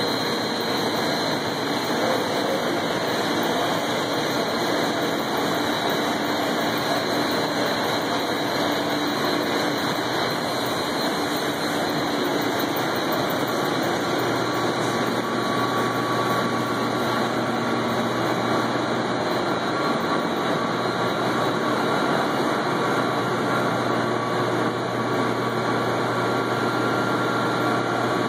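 Steady, loud drone of boiler-room machinery: boilers, a chiller and circulating pumps running together. A low hum and a faint higher whine come in about halfway through.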